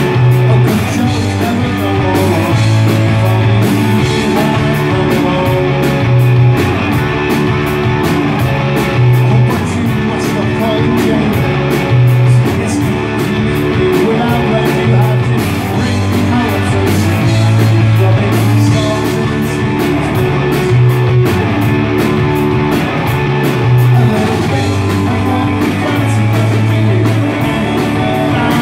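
Indie rock band playing live: distorted electric guitars, bass guitar and a steady drum beat, with a male lead singer's vocals.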